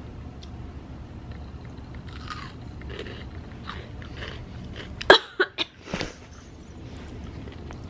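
Crunchy snack chips being chewed close to the microphone over a steady low hum. About five seconds in come three or four loud, sharp crackles, the snack bag being handled.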